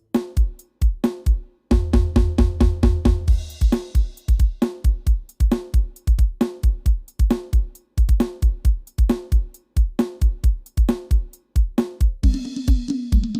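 Drum-heavy music played through a sound system for a sound check: kick drum, snare and hi-hats in a fast, steady beat with a bass line, turning denser with cymbal wash near the end.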